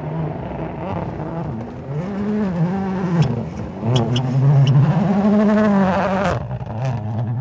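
Toyota Yaris WRC rally car's turbocharged 1.6-litre four-cylinder engine revving hard as the car slides on gravel. The engine pitch rises and falls repeatedly through gear changes and throttle lifts, and there are several sharp cracks. It is loudest about four to six seconds in.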